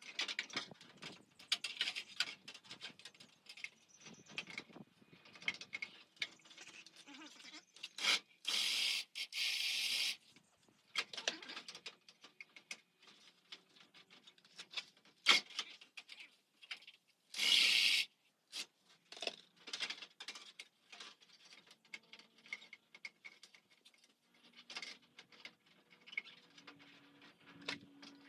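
Hands-on work at the van's rear door: many small clicks, knocks and rattles of parts and tools being handled, broken twice by a short scraping or hissing noise about one to two seconds long, around a third of the way in and again past the middle.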